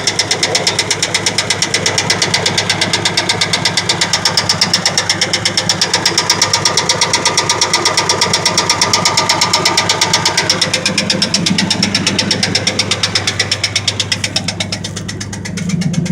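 1999 Ford F-150's 4.2-litre V6 idling with a rapid, even ticking or light knocking that keeps time with the engine. Near the end the ticking fades as the engine's low hum grows louder.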